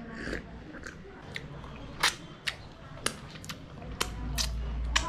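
Close-up eating sounds: a person chewing and biting, with sharp, irregular crisp clicks and crunches a few times a second apart.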